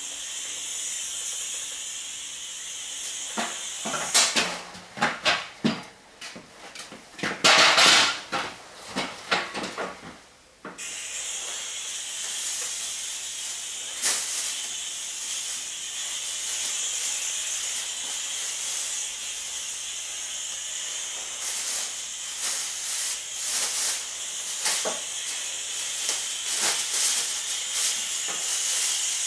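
Steady high hiss of a sprayer misting insecticide against psocids (paper lice). A few seconds in, the hiss gives way to loud irregular crackling and rustling, then resumes abruptly.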